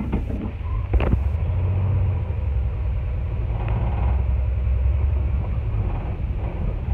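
A 1964 Ford F100 pickup's engine running with a steady low rumble, heard from inside the cab as the truck drives slowly. There is a single sharp knock about a second in.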